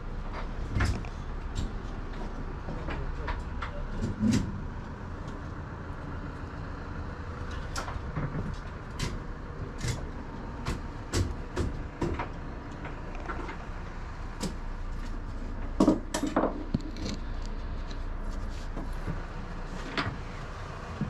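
Scattered knocks, clicks and footfalls of someone moving about inside a curtain-sided truck trailer beside a strapped-down car, over a steady low hum. The loudest knocks come about four seconds in and again around sixteen seconds.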